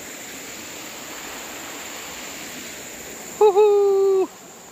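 Steady rush of a fast-flowing, swollen river. About three and a half seconds in, a man's loud held 'hooo' call lasting about a second, dipping in pitch at its start and then holding one note.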